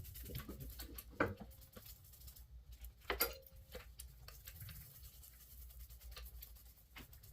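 Brush scrubbing a brake caliper: scattered scratchy strokes, with two louder knocks about a second and three seconds in.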